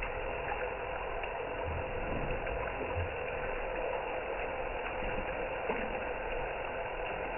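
Electric orbital sander running steadily, wet sanding an aluminium chassis plate with 180-grit paper, with a steady hum under the sanding hiss.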